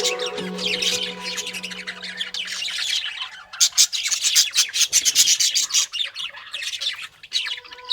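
A flock of lovebirds chirping and chattering in a dense run of rapid, high twitters.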